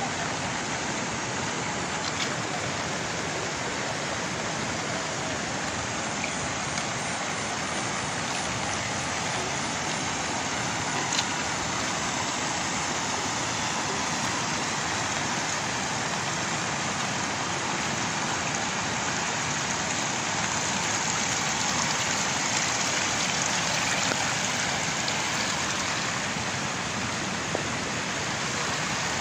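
Steady rushing of muddy floodwater pouring across flooded rice paddies, a river in spate over the fields, swelling slightly about two-thirds of the way through.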